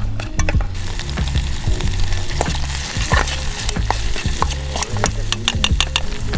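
Food frying in a pan over a camp stove, the sizzle starting about a second in, while a utensil stirs and clicks against the pan.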